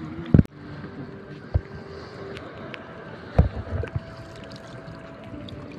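Shallow sea water sloshing and splashing around people wading and working a fishing net. Three sudden low thumps come through, the loudest about a third of a second in, then at about one and a half and three and a half seconds.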